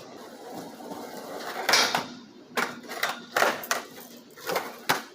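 Skateboard wheels rolling on pavement, then a loud board impact just under two seconds in, followed by several sharp clacks and knocks of the deck and wheels hitting the ground during a trick attempt.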